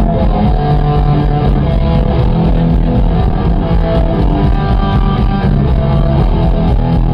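Punk rock band playing live through a loud PA: electric guitar, bass and drums, steady and loud throughout.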